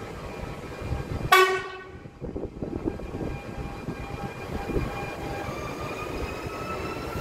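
SNCF Régiolis regional train giving one short horn toot about a second in as it pulls into the platform, then rolling in with a low rumble and a faint whine that slowly rises in pitch near the end.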